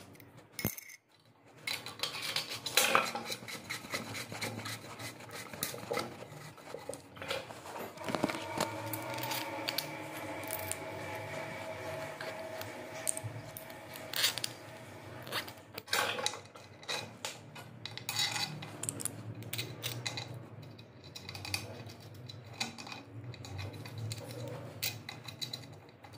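Hard plastic flush-valve parts clicking, scraping and knocking against a ceramic toilet cistern as they are fitted into its outlet hole, in irregular handling taps.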